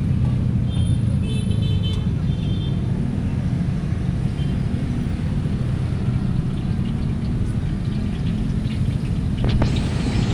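Steady low rumble from a roadside street-food stall. About nine and a half seconds in, a sudden loud sizzling with scattered clicks starts, as of food going into a hot wok for fried rice.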